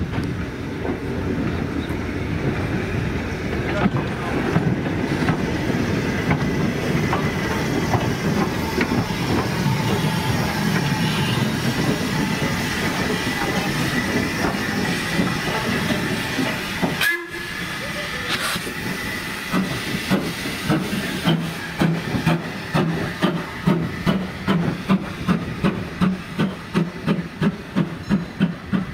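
Steam-hauled train running, a steady rumble with a faint high whine. After an abrupt change about 17 seconds in, a regular beat of about two a second sets in.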